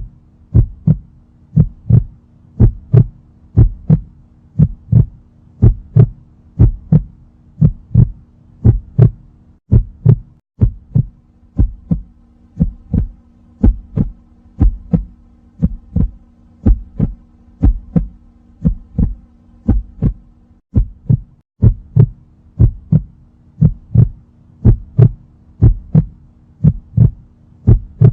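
Steady heartbeat-like double thumps, about one pair a second, over a low steady hum. The beat drops out briefly twice, about ten and twenty-one seconds in, and then goes on.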